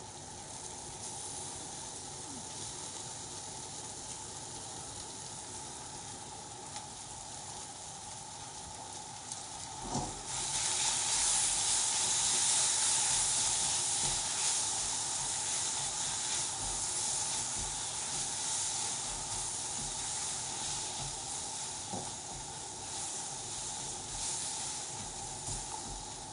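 Sliced peppers and onions sizzling in a hot wok as salsa is poured in and stirred through. About ten seconds in the sizzle becomes much louder and hissier, then slowly eases off.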